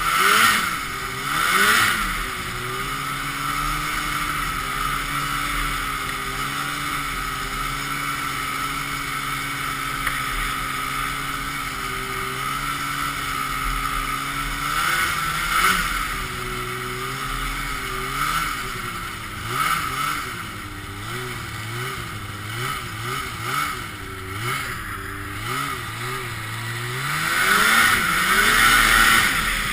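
Ski-Doo Blizzard 5500 snowmobile's 503 cc two-stroke twin running under way, holding a steady pitch for long stretches. In the second half the engine pitch rises and falls again and again as the throttle is worked, and it surges louder near the end.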